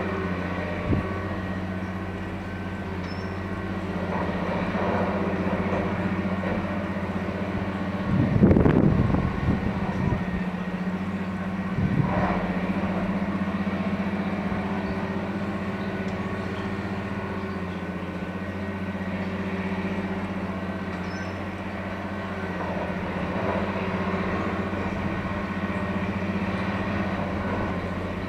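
Diesel engine of a multiple tie tamper, a railway track-maintenance machine, running with a steady low hum. The sound swells for a couple of seconds about eight seconds in and briefly again around twelve seconds.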